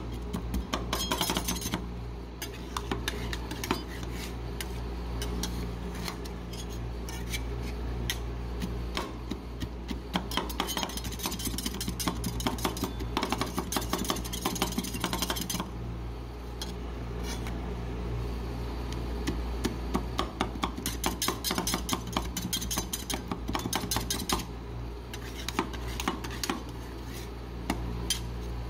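Two metal spatulas rapidly chopping and scraping on a frozen steel ice-cream plate, a dense clatter of taps as they chop chocolate-covered pretzels into the ice cream base. A steady low hum runs underneath.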